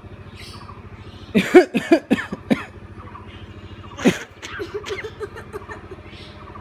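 Common myna giving a quick run of loud, harsh, cough-like calls about a second in, another single call near the middle, then softer chatter, over a steady low hum.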